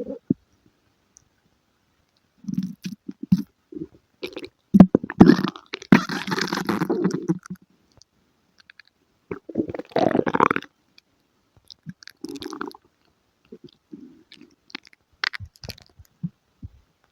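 Stomach and bowels gurgling in several irregular bouts of bubbling, crackling rumbles, the longest and loudest about five to seven seconds in, with short silences between.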